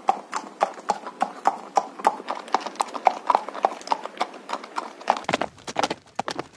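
Horse hooves clip-clopping at a walk, a steady run of about four hoofbeats a second, added as a sound effect.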